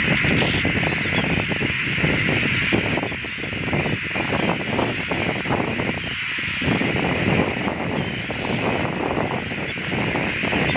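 A large black-headed gull breeding colony in the air, calling all together in a dense, unbroken chorus, with a few single calls standing out above it. These are the alarm calls of a colony put up by people walking among the nests. Gusty wind buffets the microphone underneath.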